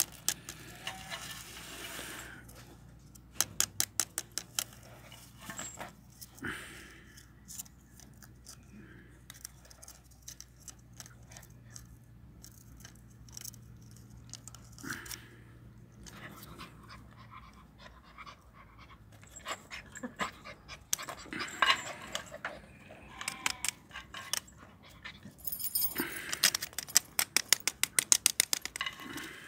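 A chained puppy tugging and biting at a wooden stick, with occasional small puppy noises. Its metal chain rattles and clicks on the concrete in quick runs, a short run a few seconds in and a dense run near the end.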